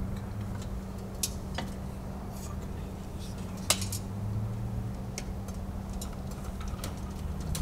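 Scattered metallic clicks and clinks of hand tools and parts as the exhaust is worked off a Rotax 582 two-stroke engine, the sharpest clink about halfway through, over a low steady hum.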